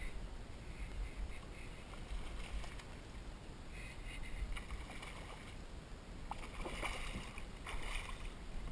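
Water splashing and sloshing at the side of a kayak in short bursts from about four seconds in, the strongest near the end, over a low steady rumble.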